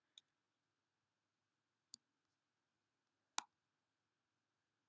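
Three single computer mouse clicks over near silence: two faint ones, then a louder one about three and a half seconds in.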